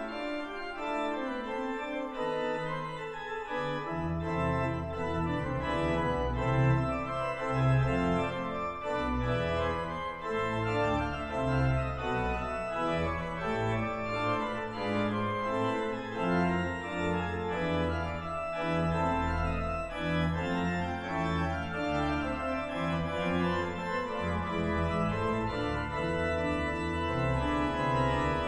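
Large concert-hall pipe organ (C.B. Fisk organ 'Lucy') playing sustained, many-voiced music, with deep pedal bass notes joining about four seconds in.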